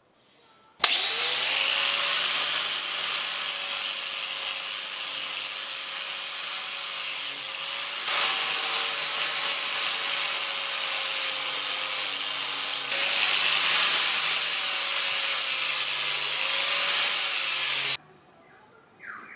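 Angle grinder with an abrasive disc grinding rust off the steel jaw of an old adjustable spanner: a steady motor whine over a loud grinding hiss. It starts suddenly about a second in, jumps in level twice, and cuts off sharply near the end.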